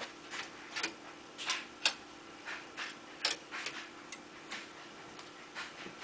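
Faint irregular ticks and clicks, two or three a second, over a steady low hum.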